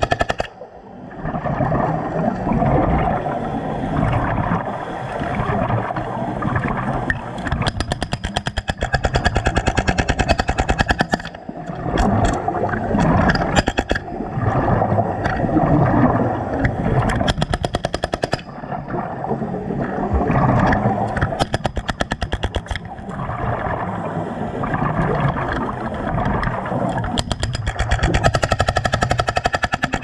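BR45 45-lb hydraulic jackhammer hammering rapidly underwater, chipping concrete, heard through the water. It stops briefly just after the start, then runs on with a fast, even hammering.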